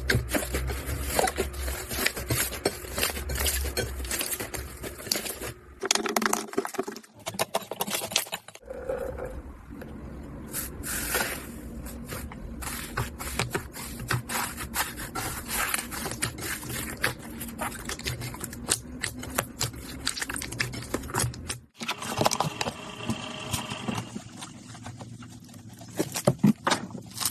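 Slime being squeezed, poked and stretched by hand: a dense run of small sticky clicks, pops and crackles. The texture changes abruptly a few times, as one slime clip gives way to another.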